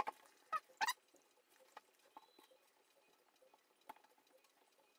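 Faint clicks and short squeaks of a rubber Tropic strap and its metal spring bar being worked into a watch's lugs with a spring bar tool. Two quick squeaks in the first second, then single light clicks about two and four seconds in.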